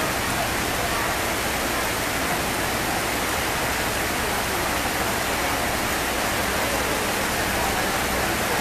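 Heavy tropical rain pouring down, a steady dense hiss with no let-up.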